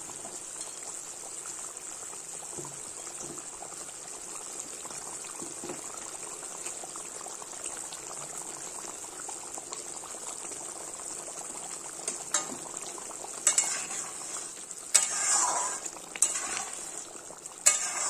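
Curry gravy bubbling at a boil in a kadai, a steady hiss. A few sharp knocks and clatters against the pan in the last six seconds as fried fish pieces go in.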